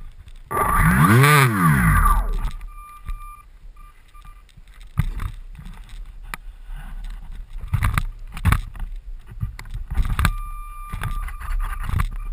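The model plane's small electric motor and propeller are briefly throttled up and back down, a whine that rises and falls in pitch over about a second and a half, starting about half a second in. Scattered knocks and bumps follow as the foam airframe is handled on the snow.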